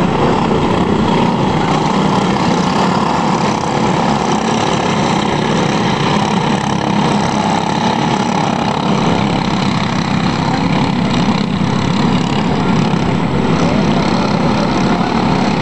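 A pack of box-stock racing karts with Briggs & Stratton Animal four-stroke engines running flat out round the track, their engines blending into one steady, loud buzz.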